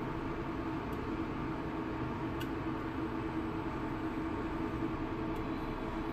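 Industrial induction cooker running under a wok: a steady whir from its cooling fan with a low, even hum.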